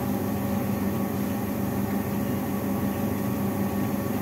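Chopped onions sizzling steadily in hot oil in a steel pan, over a steady low mechanical hum.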